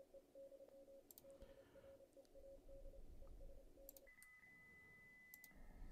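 Faint Morse code from an Elecraft KX3 transceiver's receiver, a single tone keyed on and off. About four seconds in, after a click, the keying stops and a faint steady high whistle takes over, with another soft click near the end.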